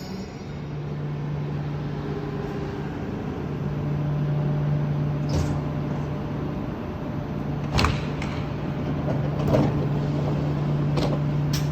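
KTX high-speed train standing at a station platform: a steady low hum from the train, with several short sharp knocks and clicks in the second half.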